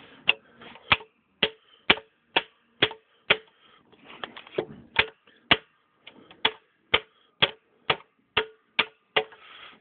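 A series of sharp knocks at a steady pace of about two a second, with a couple of short pauses, like something being struck over and over.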